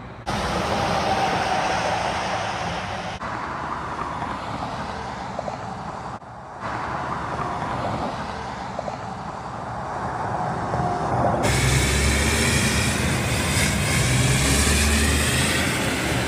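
Interstate highway traffic, with vehicles rushing past. The sound changes abruptly a few times, and a heavier, louder low engine rumble comes in for the last few seconds.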